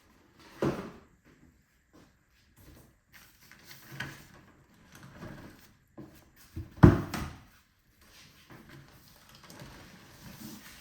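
Unboxing handling noises: packaging and parts being moved and set down, with a few knocks. The loudest thump comes about seven seconds in.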